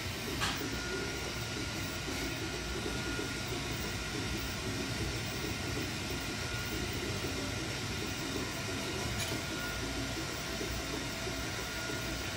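Steady rushing hiss and low rumble of a glassblower's bench torch burning. A faint high whine runs through it, with two small clicks near the start.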